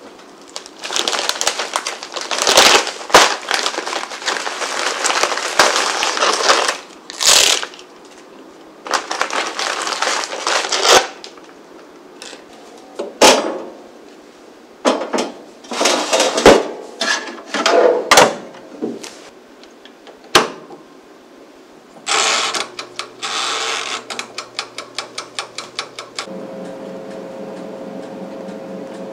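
Kitchen handling sounds: cloth rustling and the clicks and clatter of a countertop air fryer oven's door and wire tray. Near the end, a dial is turned with a rapid run of even ticks, and the oven then starts running with a steady hum.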